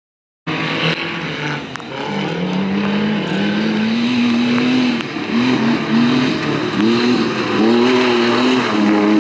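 Engine of a 2.5-litre Suzuki off-road rally 4x4 revving hard, cutting in about half a second in. Its pitch climbs, holds high, then drops and climbs again several times as the throttle is lifted and reapplied.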